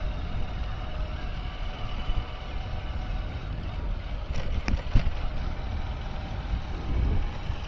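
A vehicle on the move, its engine running under a heavy low rumble of wind buffeting the microphone, with a couple of sharp knocks about five seconds in.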